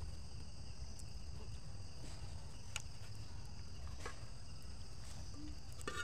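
Insects chirring steadily in the grass, with a few light clinks of a metal spoon against the cooking pot as fish is served, over a low background rumble.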